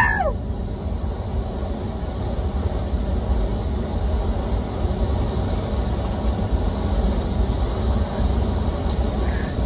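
Steady rushing roar of river water spilling over a low dam weir and running past the wading angler, with a deep rumble underneath.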